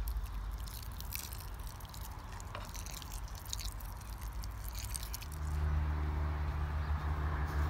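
Water from a watering-can spout pouring onto compost in a pot, with a crackly patter. About five seconds in, a steady low hum starts.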